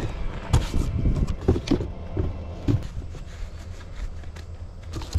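A cardboard box and the gear in it being handled and rummaged through: irregular knocks, scrapes and rustles, busiest in the first three seconds and sparser after.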